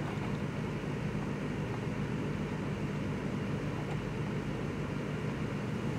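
Steady low mechanical hum of room background noise, even throughout, with no distinct handling sounds.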